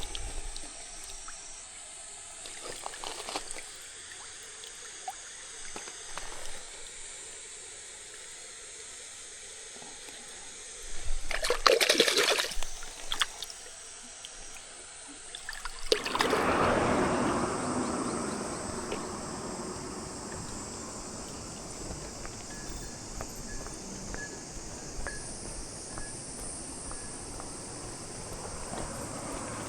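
Liquid trickling and pouring, with a short louder splash-like burst near the middle and a sudden dense noise just past halfway that slowly dies away.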